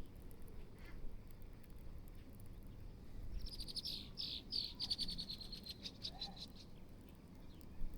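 A songbird singing one trill of rapid, evenly repeated high notes that drops slightly in pitch, starting about three seconds in and lasting about three seconds.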